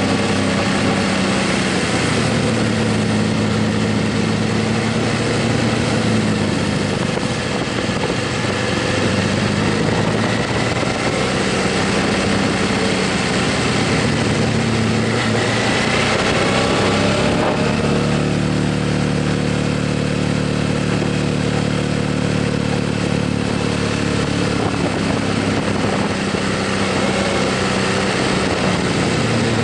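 Motorcycle engine running while riding, its note rising and falling several times with the throttle, over a steady rush of noise.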